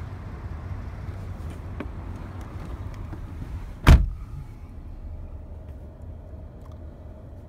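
A car door shutting with one solid thud about four seconds in, after which the outside noise drops away; under it a steady low rumble in the cabin of the Ford Expedition.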